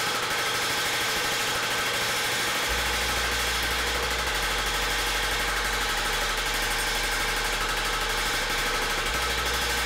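Sosa Metalworks Shape-O-Matic helve power hammer running steadily, its ram pounding rapidly on a sheet metal disc as the edge is stack-shrunk into a bowl.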